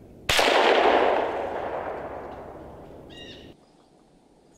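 .22 rimfire rifle shot fired at a squirrel: one sharp crack with a long fading echo, cut off about three and a half seconds in.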